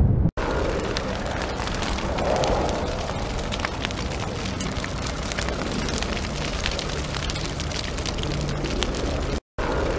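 A steady rushing noise full of small crackles and pops, like a roaring fire, cut by two brief silent gaps, one near the start and one near the end.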